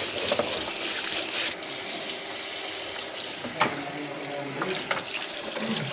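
Tap water running into a sink as a circuit board is washed, with a sharp knock a little past halfway.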